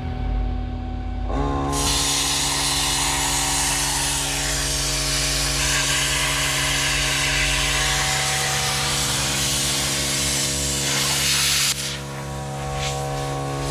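A metal-cutting torch hissing steadily as it cuts through a steel truck frame. The hiss starts about a second and a half in and cuts off sharply near the end, over guitar music.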